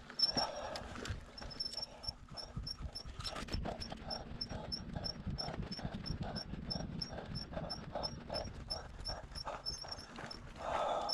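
Heavy, rapid panting of a man pushing a heavy e-bike up a steep hill, an even rhythm of about two to three breaths a second, with a louder breath near the end.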